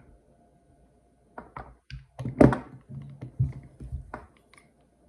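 Two Daiwa spinning reels being handled: a scattered run of short clicks and knocks, the loudest about two and a half seconds in.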